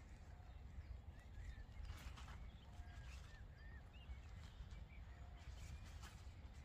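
Faint lakeside ambience: scattered short bird chirps over a low steady rumble, with brief rustles of tent fabric being handled about two seconds and six seconds in.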